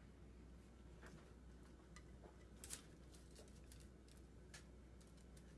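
Near silence: quiet room tone with a few faint, scattered clicks of dogs' claws on a tile floor, the clearest about two and a half seconds in.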